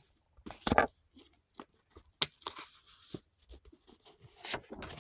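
Paper cards being handled and leafed through: irregular rustles and light snaps of card stock, the loudest just under a second in.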